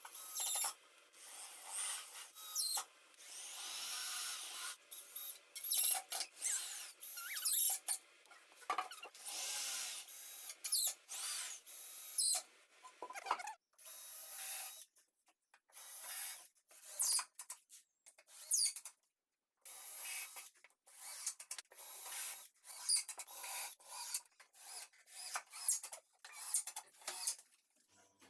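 A rapid series of woodworking tool sounds on plywood: short bursts of power-tool and rasping work that start and cut off abruptly many times over.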